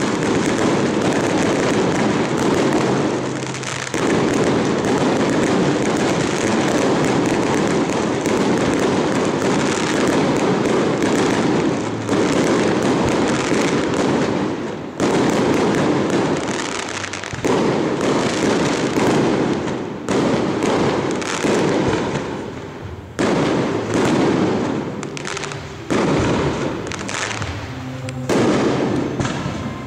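Fireworks display: a dense, continuous crackle of bursting fireworks. In the second half a fresh loud burst sets in every two to three seconds, with the crackle dying down between them.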